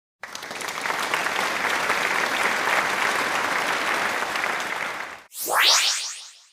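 Stock sound effect of a crowd applauding, dense clapping for about five seconds that cuts off abruptly. It is followed by a short rising whoosh sweep.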